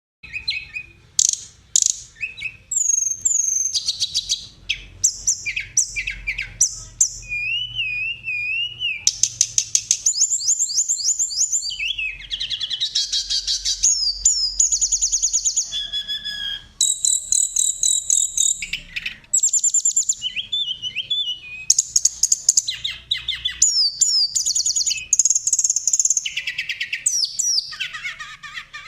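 A masteran recording of mixed songbird song, used to train and provoke caged songbirds: a dense, unbroken run of rapid high-pitched trills, chirps and whistled phrases, changing from one song type to another every second or two.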